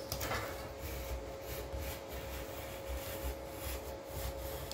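Utility knife drawn through a cardboard box, an uneven scratchy scraping as the blade cuts out a rough shape.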